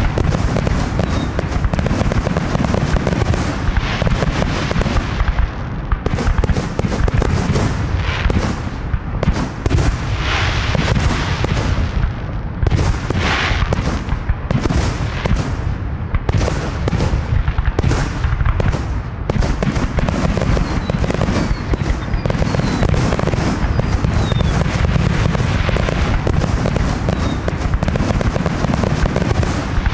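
Fireworks display: aerial shells bursting in a dense, continuous barrage of loud booms and pops over a steady low rumble, with longer hissing bursts partway through.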